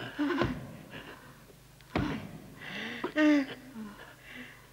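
A person's strained wordless cries and gasps in short bursts, the loudest a wavering cry about three seconds in, with two sharp thumps about half a second and two seconds in.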